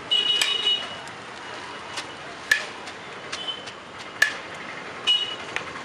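Steel serving spoon clinking sharply against the rim of a large aluminium biryani pot a few times as rice is scooped out. Short, high vehicle-horn beeps sound in the street, the loudest just at the start and others in the middle and near the end.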